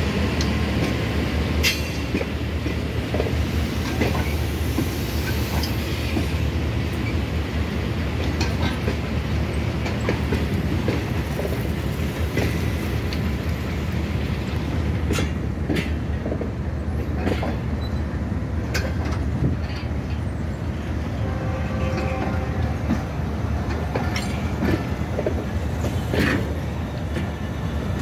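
Passenger coaches of a train rolling slowly past: a steady rumble of steel wheels on rail, with irregular clicks over the rail joints and a few faint wheel squeals in the second half.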